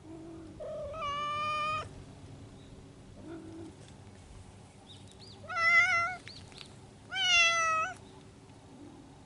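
Stray cats yowling during spring courtship: three drawn-out meows, the second and third the loudest, with a few short low calls in between.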